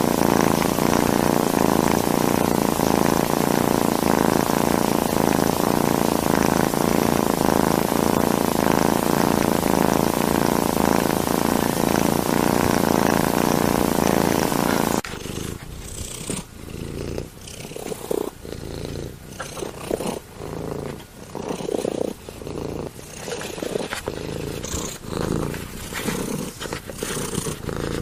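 Domestic cat purring: a loud, steady purr for about the first half, then after an abrupt cut a quieter purr that rises and falls about once a second with the cat's breathing.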